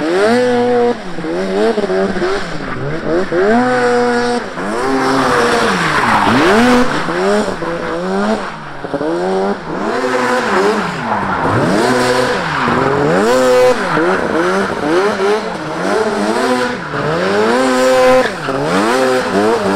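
Drift trike's 600cc two-stroke Polaris snowmobile engine revving hard, its pitch rising and falling again and again every second or so as the throttle is worked through slides, with tyres skidding.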